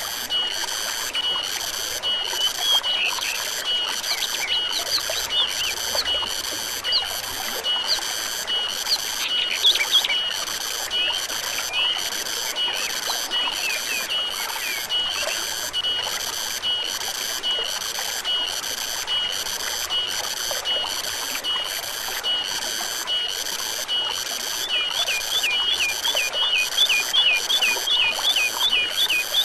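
Forest ambience: an insect chorus in a steady pulsing rhythm over the rush of a stream, with scattered bird chirps in the first third and a fast run of repeated bird calls near the end.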